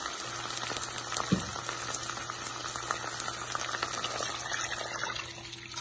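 Onions and whole spices sizzling and crackling in hot ghee in a wok. A single knock comes about a second and a half in. Water is poured into the pan near the end, and the crackle dies down.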